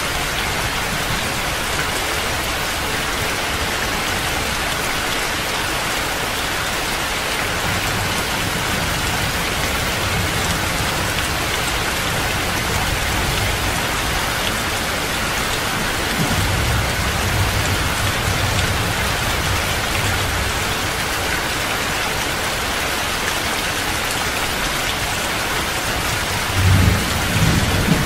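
Heavy rain falling steadily as an even hiss. Low rumbles of thunder come and go beneath it, the loudest a brief one near the end.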